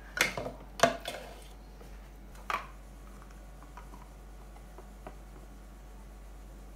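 Metal spoon knocking and scraping against a plastic food-processor bowl while scooping green chilli paste into a plastic tub: several sharp knocks in the first second and another about two and a half seconds in. Then a plastic lid is pressed onto the tub with a few faint clicks.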